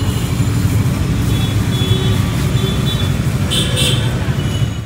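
Steady street traffic noise, a continuous low rumble of passing motor vehicles, with a short high-pitched sound about three and a half seconds in.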